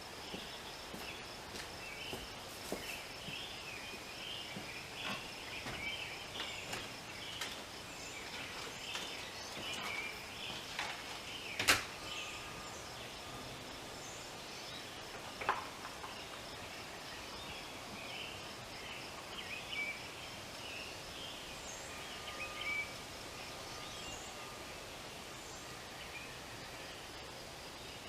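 Outdoor ambience: birds chirping on and off over a faint, steady high pulsing sound. A single sharp click about twelve seconds in is the loudest thing, with a smaller click a few seconds later.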